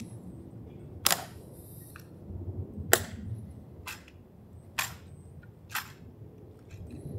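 Camera shutter clicking five times, roughly a second apart, over a low background rumble.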